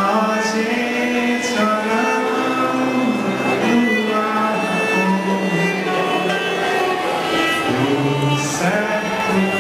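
Background instrumental music with bowed strings playing slow sustained notes.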